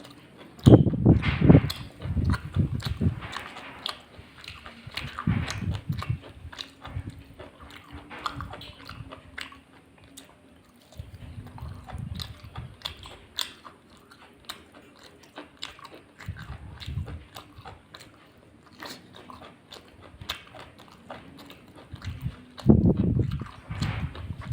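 A person eating a rice-and-curry meal close to the microphone: irregular chewing and wet mouth sounds with small clicks, loudest about a second in and again near the end.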